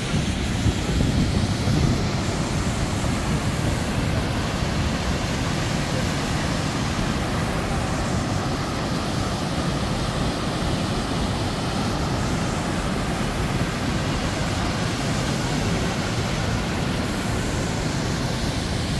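Steady, loud rushing of the Youghiogheny River's falls and rapids: an even wash of water noise with no breaks.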